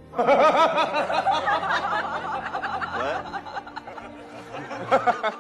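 A person laughing in quick repeated bursts, strongest for about the first three seconds, then dying down, with a short burst again near the end.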